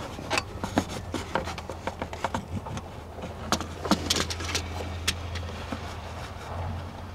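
Scattered clicks, taps and scrapes from an inspection mirror and light being worked around the engine bay, with the sharpest taps about halfway through, over a steady low hum.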